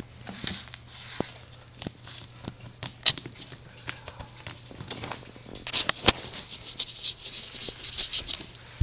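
Fingers scratching and rubbing along the bottom edge of a door and the floor beneath it, with irregular sharp clicks and taps that grow busier after about five seconds; a steady low hum runs underneath.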